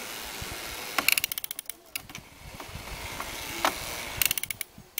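Two runs of rapid clicking, about ten clicks a second, one about a second in and another near the end, with a single click between them, over a steady hiss.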